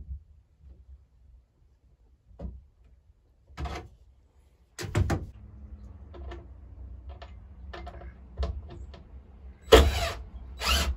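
Cordless drill driving screws into a wooden nest box in short bursts, one about five seconds in and two near the end, the last two the loudest. Clicks and knocks of handling the tool and wood fall between them.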